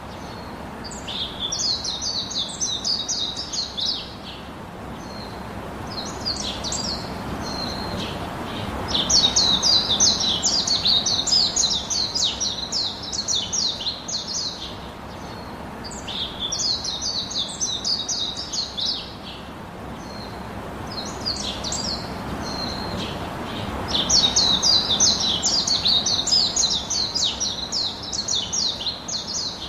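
Birds chirping in repeated bouts of rapid, high-pitched chirps, each run lasting a few seconds with short pauses between, over a steady background hiss.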